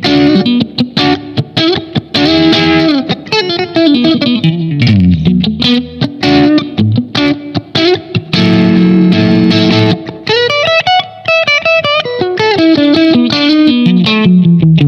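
Soloking MS-1 Custom 22 HSS electric guitar played through an amp, mixing quick runs of picked notes with held notes, one of them bent upward about ten seconds in.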